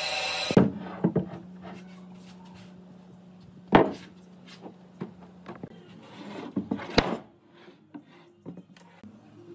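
A power tool running stops about half a second in. It is followed by a series of sharp wooden knocks and clunks, with lighter rubbing between them, as pieces of wood are handled. The two loudest knocks come near the middle and about two-thirds of the way through.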